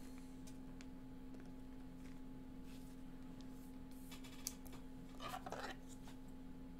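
Quiet room tone with a steady low hum, a few faint clicks, and a brief faint murmur about five seconds in.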